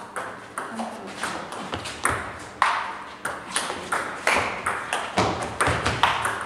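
Table tennis ball in a fast rally, clicking sharply off the paddles and the table, several hits a second in an uneven rhythm.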